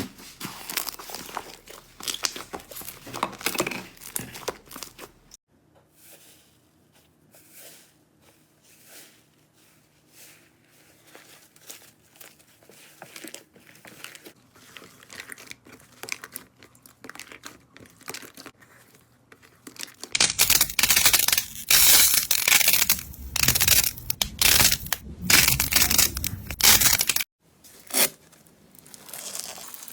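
Slime being squeezed and pressed by hand, crackling and crinkling. The sound comes in several short clips that change abruptly, with the loudest and densest crackling in the later part.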